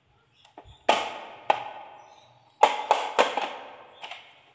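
Hard plastic knocks and clatters of a toy dump truck's tipping bed being handled: about six sharp knocks, each trailing off in a short rattle.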